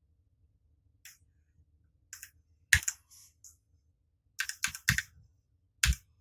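Keystrokes on a Ducky One 2 Mini 60% mechanical keyboard with Cherry MX Red switches and double-shot PBT keycaps, pressed as the Function-Alt-T combination that steps through the lighting modes. Single scattered presses, loudest about three seconds in and near the end, with a quick run of clicks around five seconds.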